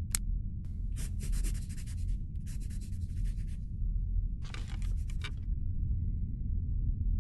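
Three bouts of rapid scratching strokes, about a second each, over a low steady rumble, after two short clicks at the start.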